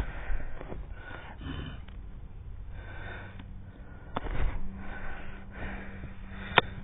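Yellow Labrador sniffing in short breathy bursts, with a few sharp clicks or knocks, the loudest near the end.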